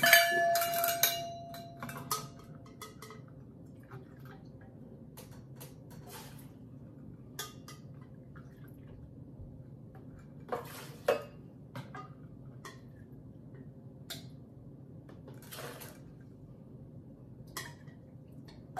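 Kitchen dishes and utensils being handled. A struck dish rings briefly at the start, then scattered clinks and knocks follow every second or two over a faint steady hum.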